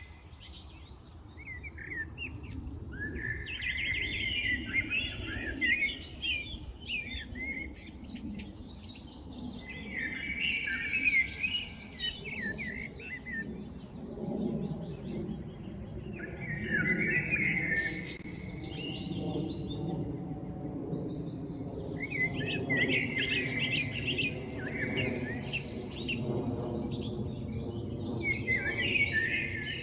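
Songbirds singing and chirping in bouts of quick warbled phrases that come every few seconds. A faint low steady hum joins underneath about halfway through.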